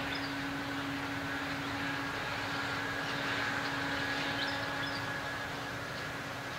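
Engine running steadily with a constant hum, from a vehicle or farm machine out of view. A few short high chirps come near the start and again about four and a half seconds in.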